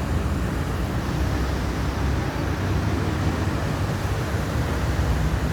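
Río Cali rushing steadily over its bed, a continuous even roar of flowing water heaviest in the low end.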